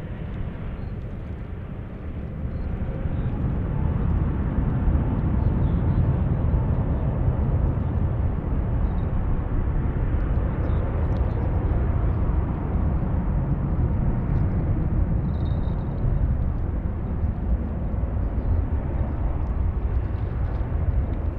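Jet airliner engines rumbling, a deep steady roar that swells about three seconds in and then holds.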